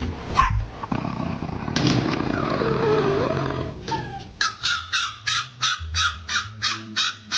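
A dog barking, ending in a quick run of about ten sharp barks, roughly three a second, in the second half.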